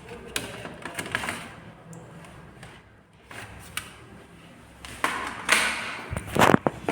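Small clicks, taps and scraping of hands and tools working on a laptop's plastic case and parts, busier and louder for the last couple of seconds.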